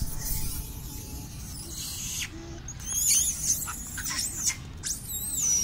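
High-pitched, wavering animal squeals in a few short runs, about three seconds in and again near the end, over a steady low rumble.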